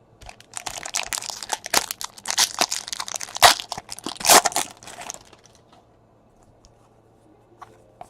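Trading card pack wrapper crinkling and tearing as it is ripped open, a dense crackling lasting about four and a half seconds, then quiet.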